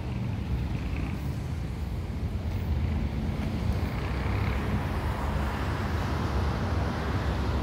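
Street ambience of steady road traffic, with wind rumbling on the microphone.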